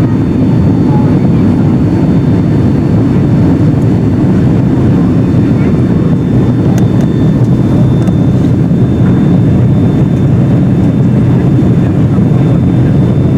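Steady cabin noise inside a Boeing 757-351 airliner in flight: a dense low rumble of engines and airflow, with a faint thin steady tone above it.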